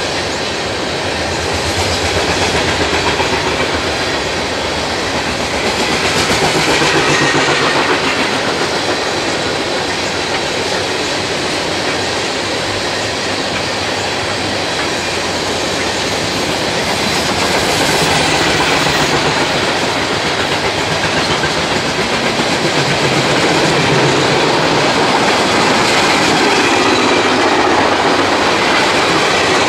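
Freight train cars rolling past close by: a steady loud rumble and rattle of steel wheels on the rails, with clickety-clack from the wheels.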